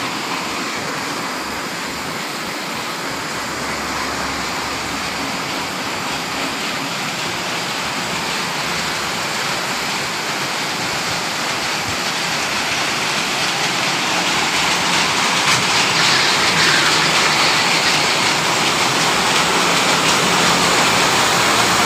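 Textile-factory machinery running: a steady, dense rushing noise with no clear rhythm, growing louder in the second half.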